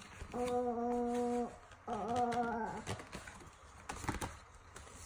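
A person's voice holding a long, steady note twice, each lasting about a second, with a short break between.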